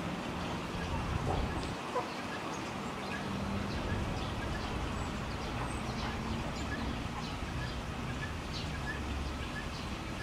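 Small birds chirping in many short, high calls scattered throughout, over a steady background din with a low hum.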